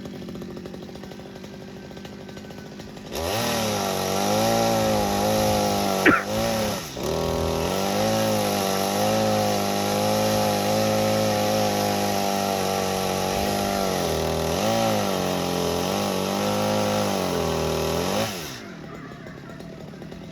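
Chainsaw idling, then opened to full throttle about three seconds in and run hard for some fifteen seconds, its pitch dipping and recovering as it works through wood. A brief sharp noise comes about six seconds in. The saw drops back to idle near the end.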